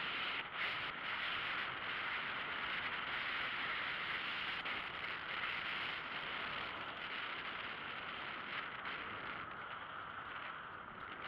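Steady rolling noise of a velomobile moving along an asphalt road: tyre and drivetrain noise mixed with wind rushing past, easing slightly toward the end.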